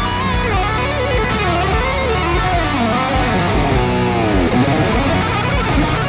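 Electric guitar playing a lead solo of bent and vibratoed notes over a backing track with bass and drums. About four seconds in, a note falls steeply in pitch.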